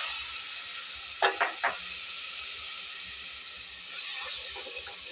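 Onions and ground spices frying in hot oil in a pan, sizzling steadily while a spatula stirs them: the masala being fried (bhuna) for a curry. A little over a second in, three short loud knocks or scrapes come from the spatula working the pan.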